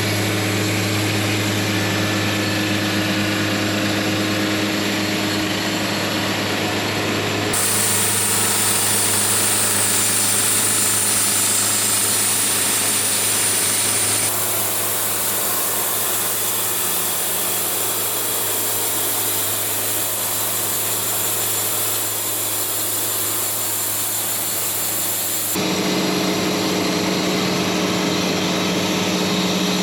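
Portable band sawmill running steadily, its engine humming under the noise of the blade sawing through a log. The sound changes abruptly a few times.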